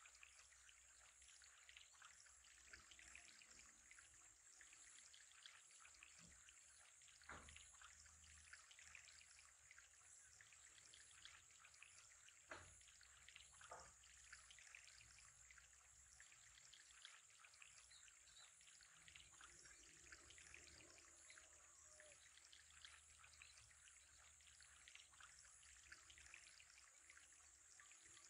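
Near silence: a faint, steady trickle of water, with a few soft clicks.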